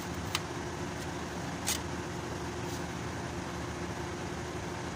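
A steady mechanical hum with a faint steady tone, broken by two light clicks, one about a third of a second in and one near the two-second mark.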